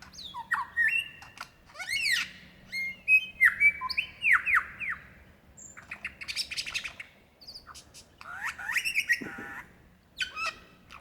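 Male superb lyrebird singing a fast, varied run of mimicked calls: sharp whistles, downward-sweeping notes and quick clicking phrases, with brief pauses between bursts.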